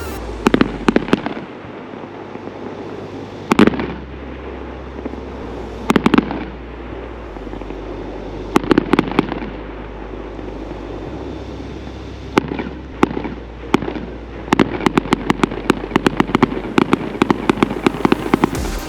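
Fireworks display: aerial shells bursting with single sharp bangs every few seconds. About three-quarters of the way through, a dense run of rapid crackling reports follows.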